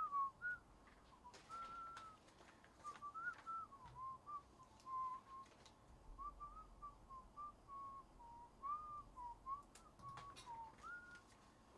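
A person whistling a meandering tune in a series of short notes and slides, with a few faint clicks.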